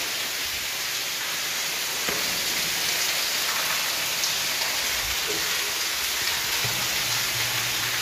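Steady rush of water falling and splashing inside a concrete drain tunnel.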